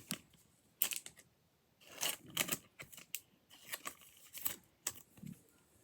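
Thin plastic card sleeve crinkling and rustling as a trading card is slid into it, in short scattered rustles and clicks.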